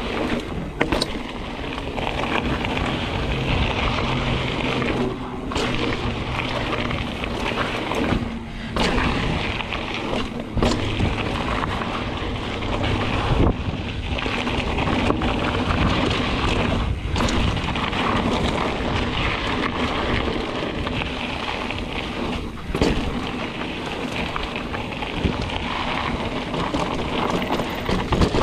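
Mountain bike rolling fast down a dirt trail: a steady rush of tyre noise and wind on the camera microphone, broken every few seconds by sharp knocks and rattles as the bike hits bumps and rocks.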